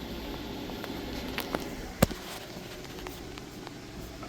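Small accessories and packaging being handled, with faint light clicks and one sharp knock about two seconds in, over a steady low hum.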